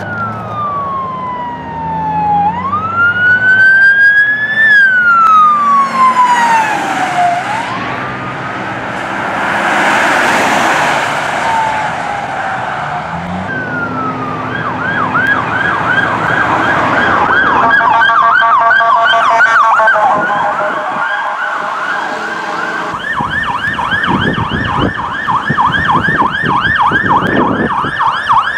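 Police cars' electronic sirens, in three clips. First a slow wail rising and falling, then a rapid yelp, with a second pulsing tone pattern joining for a few seconds, then a faster yelp after an abrupt change.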